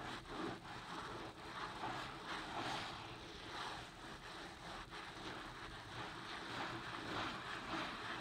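A sponge scrubbing soapy lather into a carpet mat with rubber-gloved hands, making a wet, foamy scrubbing noise. It goes in back-and-forth strokes, about two a second.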